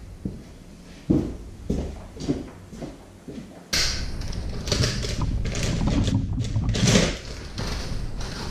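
A few separate knocks as a removed CV axle shaft is handled. Then, a little over halfway in, a stretch of crackling and rustling as plastic wrapping is pulled off a new CV axle.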